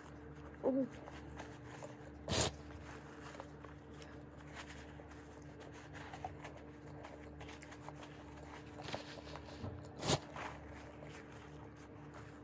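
Soft rustling of a paper napkin being wiped over a face, with two short sharp crinkles or taps, about two and a half seconds and ten seconds in, over a faint steady hum. A brief murmur of voice comes less than a second in.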